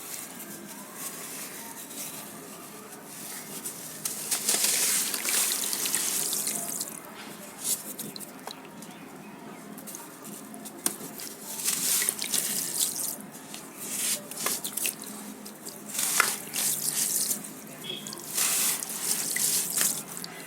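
Clumps of sand crumbling and dropping into water, in several separate bursts of hissing, splashy crumble with drips between them.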